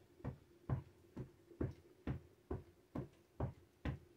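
Soft, evenly spaced knocking, a little over two thumps a second, over a faint steady hum.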